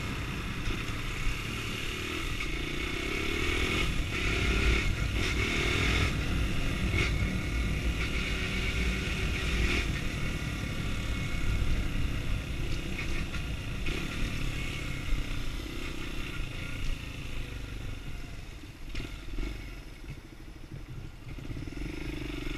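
Sundown STX 200 Motard's single-cylinder engine running while being ridden, its revs rising and falling repeatedly, easing off for a few seconds near the end.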